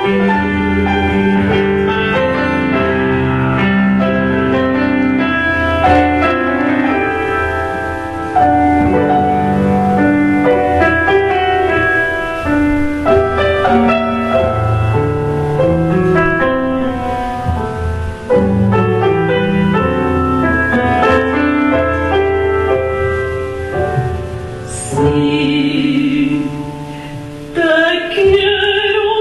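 Chamber ensemble of piano, flute and violin playing a slow instrumental passage of held, sustained notes. Near the end a soprano voice comes in with vibrato, rising in pitch.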